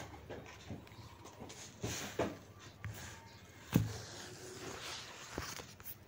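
Scattered knocks and light rustling, the loudest a dull knock about four seconds in.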